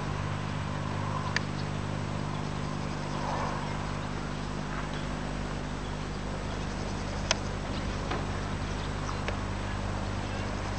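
Steady low hum and hiss of an old camcorder's sound track, with a few sharp clicks scattered through it.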